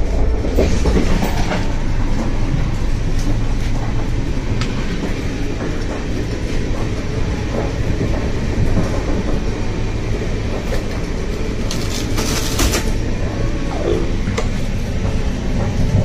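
Moving passenger train heard from inside a carriage: a steady low rumble with scattered clicks and knocks of wheels and fittings rattling, and a brief loud burst of hiss about twelve seconds in.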